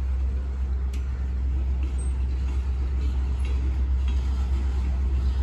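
An engine idling: a steady low rumble that holds unchanged.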